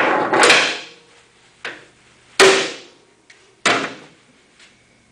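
A hammer striking the steel pin of an auto stow pin lock: a series of sharp metal-on-metal clanks, the loudest about two and a half seconds in with a short ring. The blows knock the lock back so it stays stowed, then turn it round.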